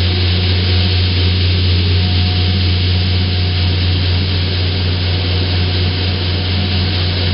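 Sternwheeler's stern paddlewheel turning and churning the river into a foaming wake, a steady rushing noise over a constant low hum from the boat's drive machinery.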